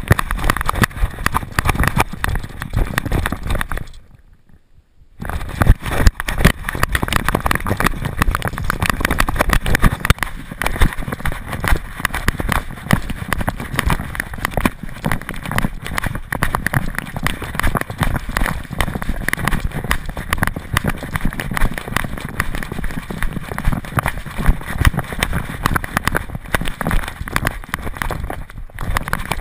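GoPro camera strapped to a running dog's back, jostled with every stride: a dense, uneven clatter of knocks and rubbing as the dog runs over path and grass. It drops out for about a second around four seconds in.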